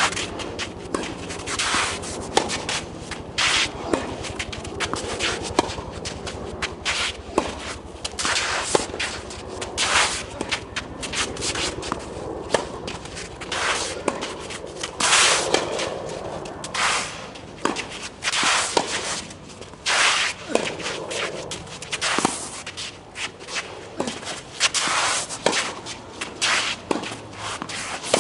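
Tennis singles rally: sharp knocks of racket strikes and ball bounces, roughly one a second, with the players' footsteps and shoe scuffs on the court between them.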